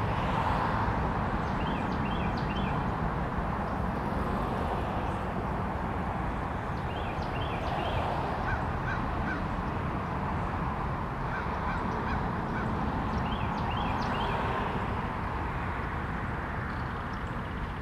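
Bird calls: short clusters of a few quick, high notes about every five to six seconds, with a few fainter, lower notes between them, over a steady background rumble.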